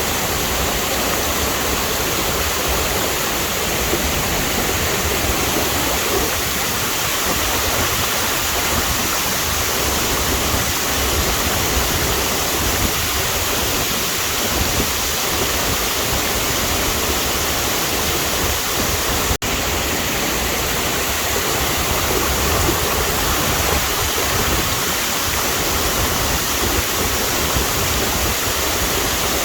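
Waterfall, water pouring and rushing steadily, with an instant's break about two-thirds of the way through.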